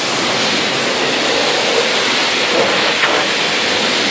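High-pressure car-wash wand spraying water onto the back of a car, a loud steady hiss of water jetting and splashing on the body panels and rear window.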